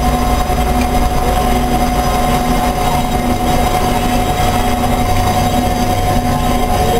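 Amada HFA-400 CNC horizontal bandsaw running, a steady mechanical noise carrying a constant high whine.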